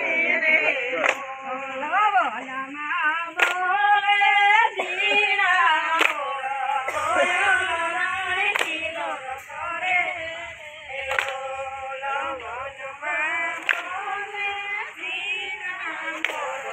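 Women singing a Gujarati garba song together, with a sharp group hand clap about every two and a half seconds that keeps time for the circle dance.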